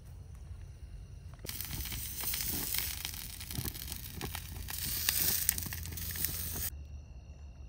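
Burger patty sizzling on a portable gas grill's grate, a steady hiss with small crackles of fat. It starts about a second and a half in and cuts off suddenly near the end.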